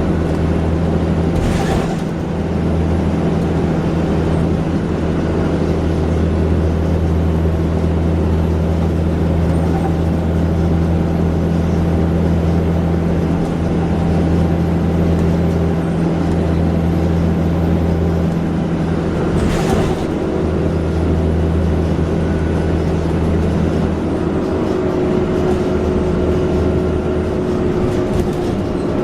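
Alexander Dennis Enviro400 double-decker bus running, a steady low engine drone at constant pitch that shifts to a different note near the end. Two sharp knocks sound, one near the start and one about two-thirds through.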